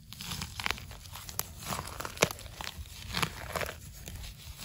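Dry leaf litter rustling and crackling as it is brushed aside by hand around termite mushrooms, with several sharp cracks, the loudest about two seconds in.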